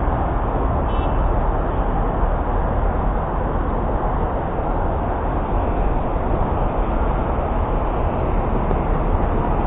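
Steady rumbling noise of city road traffic from far below, with no single vehicle standing out.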